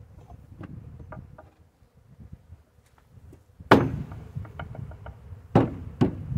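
A wooden swarm-trap box knocked down onto a beehive's wooden hive body: three sharp thumps, the first about three and a half seconds in and the loudest, then two more close together near the end, after light taps and clicks of wood.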